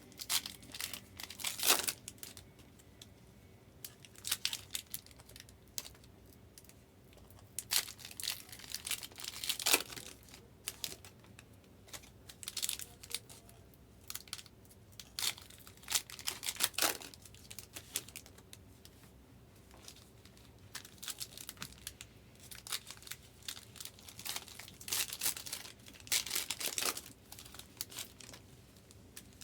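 Trading card packs being torn open and their wrappers crinkled, in irregular bursts of tearing and crackling.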